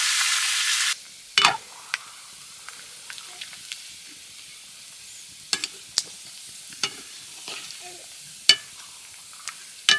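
Pork frying in fat in a black iron wok: a loud sizzle for about the first second, then a quieter steady sizzle. Sharp clinks and scrapes of a metal ladle against the pan come every second or so as the meat is stirred.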